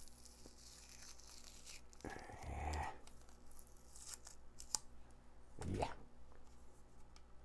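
Fingers picking and prying at the plastic housing of a cheap LED flashlight: scratchy rustling and scraping, a few sharp clicks, and a couple of duller knocks as the piece is turned in the hands.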